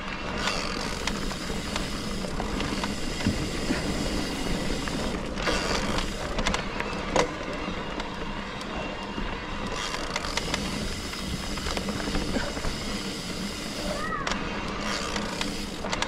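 Electric mountain bike, a Trek Rail 7, ridden over a dirt trail: steady rolling rumble of the tyres with the bike rattling over the ground, and a sharper knock about seven seconds in.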